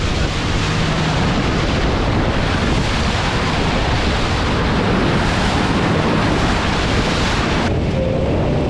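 Rushing water and spray from a boat's hull cutting through open-ocean swell at speed, with wind buffeting the microphone. Near the end the hiss cuts off suddenly, leaving a duller, lower rumble.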